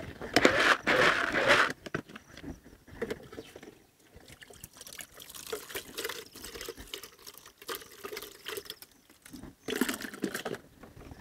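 Water poured from a plastic scoop into a plastic bucket of grain, once for about a second and a half at the start and again briefly near the end, with light knocks of the plastic scoop and bucket in between.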